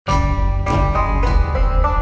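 Music with a plucked string instrument, a new note or chord struck about every half-second over a steady low bass.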